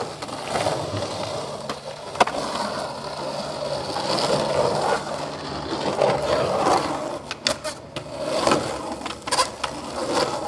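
Skateboard wheels rolling over rough concrete with a continuous gritty rumble, broken by sharp clacks of the board striking the concrete, once about two seconds in and several times in the second half.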